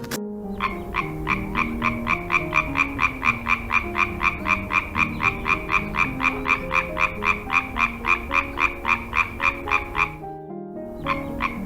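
A frog calling in a fast, even series of croaks, about four a second. It breaks off about ten seconds in and starts again near the end.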